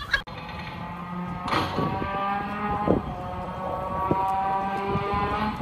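Trombone playing long held notes, moving to a new pitch a few times.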